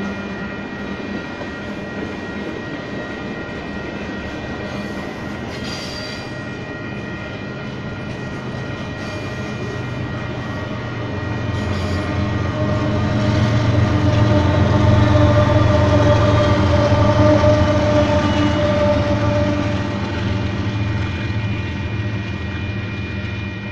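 Freight cars of a Union Pacific manifest train rolling over a grade crossing, the wheel rumble swelling loudest past the middle and easing off as the last cars clear. Over it, the crossing's WCH Type 1 mechanical warning bells ring steadily.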